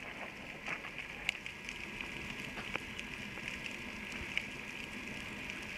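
Underwater ambience picked up through a camera housing: a steady hiss with scattered sharp crackling clicks throughout.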